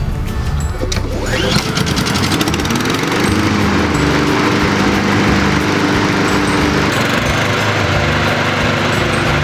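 Honda HRR216 lawn mower engine starting about a second in, its pitch rising quickly, then running steadily.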